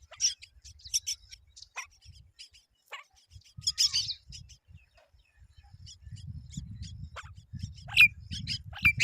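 Myna birds calling: short, sharp chirps and a few harsher squawks, scattered at first and coming thicker and louder near the end, with a low rumble underneath from about two-thirds of the way in.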